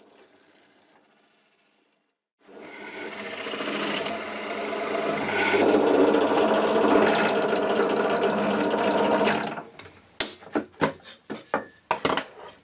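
Benchtop drill press starting up about two seconds in and running as a Forstner bit bores into a wooden board, getting louder over the first few seconds of the cut. The motor stops a few seconds before the end, and a handful of short sharp knocks follow.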